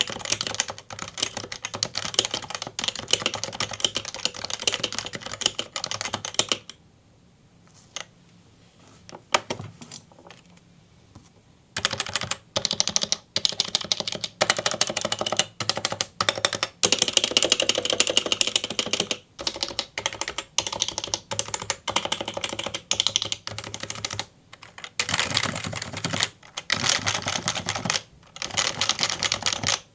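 Typing on an unlubed HHKB Professional 2 Topre keyboard with Realforce variable-weight domes: a fast run of soft keystroke thocks. It then goes nearly quiet for about five seconds, apart from a few faint strokes. Keystrokes resume about 12 seconds in, on the modifier keys, and after a short lull near 25 seconds come runs of quick repeated home-row strokes.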